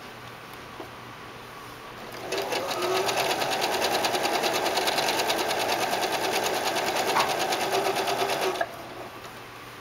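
Janome 3160 sewing machine sewing a blind hem stitch, its needle running in a quick, even stitching rhythm. It starts up about two seconds in and stops suddenly near the end.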